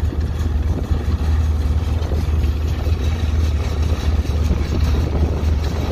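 Farm tractor engine running steadily under load while pulling a square baler through the field, a loud, even low drone with the machinery's rattle over it.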